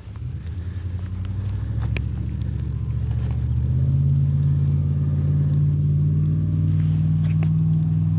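A low engine drone that grows louder over the first four seconds, then holds steady.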